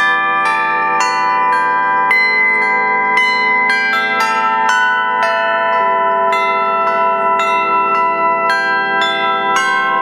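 Bells ringing a melody, a new note struck about twice a second, each ringing on and overlapping the next.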